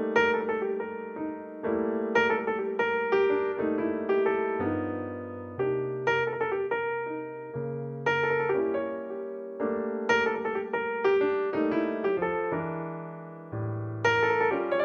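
Background solo piano music: notes and chords struck one after another and left to ring, with low bass notes coming in now and then.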